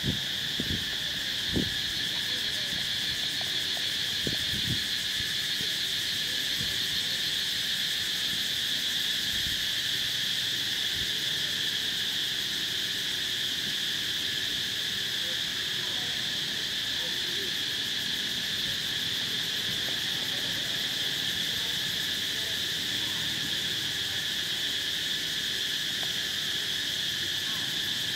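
A steady insect chorus: a continuous high-pitched drone that holds the same pitch without a break. A few soft knocks come in the first five seconds.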